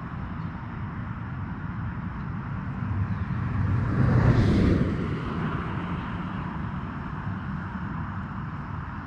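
A vehicle passing by on the road, swelling to its loudest about four to five seconds in with a falling pitch, then fading back into a steady background hum.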